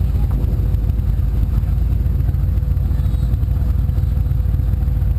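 Performance powerboat engines idling at low speed through the channel, a steady loud low rumble with a fast flutter.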